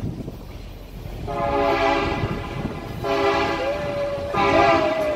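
Locomotive air horn sounding three blasts, the first two long and the third shorter, over the low running noise of the moving train.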